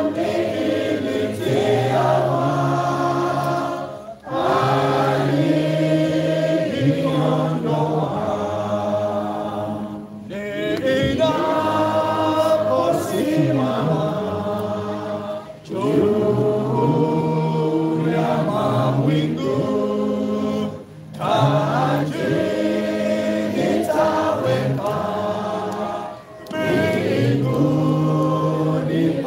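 A congregation of mixed voices singing a hymn together, unaccompanied. The song moves in long held phrases of about five seconds, with a short break for breath between them.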